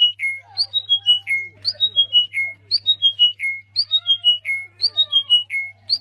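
A caged songbird sings the same loud phrase over and over, about once a second. Each phrase is about five clear whistled notes stepping down in pitch, with softer lower calls underneath.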